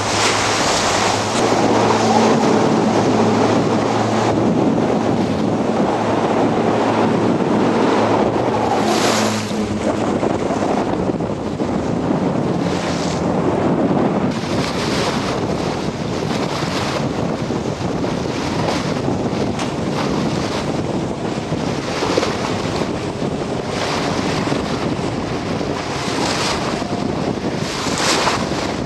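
Strong wind buffeting the microphone in gusts over choppy, splashing water. A motorboat engine runs low and steady underneath for the first ten seconds or so, then drops away.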